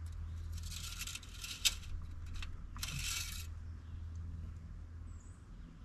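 Engine oil dipstick scraping as it is drawn from and slid back into its tube to check the oil level, in three short rasping strokes with a sharp click in the middle one.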